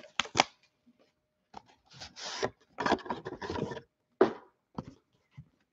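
A boxed trading-card product is slid out of its clear plastic case and handled, with cardboard and plastic rubbing and scraping in short strokes around two and three seconds in. A sharp tap comes just after four seconds.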